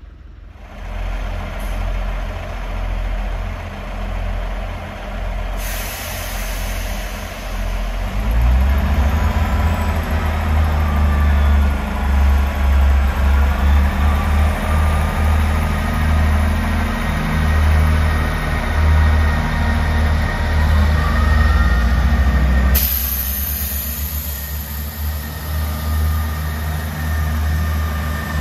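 A South Western Railway Class 159 diesel multiple unit's underfloor Cummins diesel engines running, a deep steady drone that grows louder about eight seconds in. The train is moving along the platform near the end.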